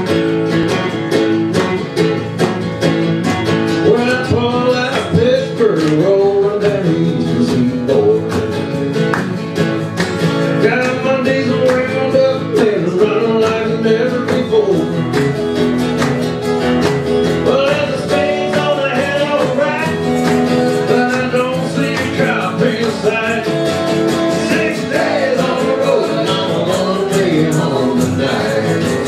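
Live country music: several acoustic guitars strumming a steady rhythm while a group of voices sings together.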